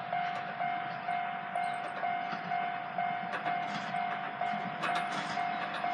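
Railway level-crossing warning bell ringing steadily, about two strokes a second, as a train approaches.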